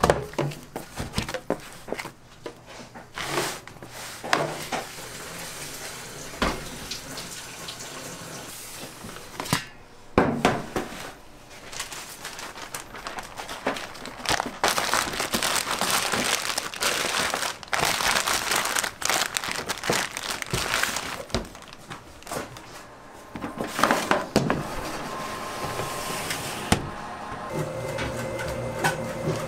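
Kitchen handling sounds of bread dough being worked: knocks and scrapes against a metal tray and bowl, then a long run of plastic bag crinkling as the dough is handled in it. A steady hum starts near the end.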